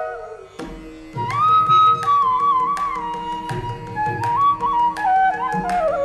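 Carnatic music on bamboo flute. The flute's gliding, ornamented melody pauses briefly, then returns about a second in over a steady drone, with hand-drum strokes coming in just before it.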